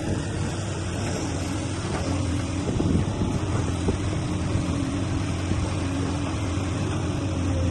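Heavy diesel engine of earthmoving machinery running steadily with a low hum, with a few faint knocks about three seconds in.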